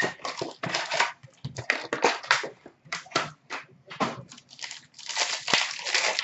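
Foil wrapper of a 2015-16 Upper Deck SP Game Used hockey card pack crinkling and tearing as it is ripped open by hand, in quick irregular crackles, densest and loudest about five seconds in.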